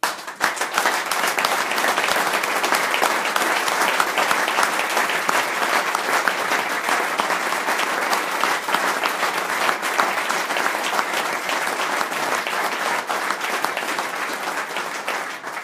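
Audience applauding, a dense, steady clapping that starts abruptly and eases slightly near the end.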